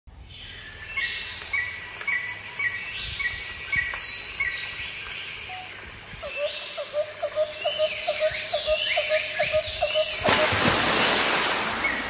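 Birds chirping: short repeated high notes with quick falling calls over them, and a run of lower ticking notes from about halfway. A loud rushing hiss takes over near the end.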